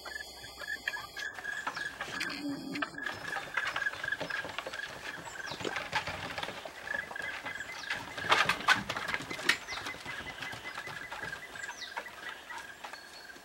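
Basset hound puppies scuffling on a wooden deck: paws and claws patter and click on the boards in quick, irregular taps, busiest and loudest about eight to nine and a half seconds in.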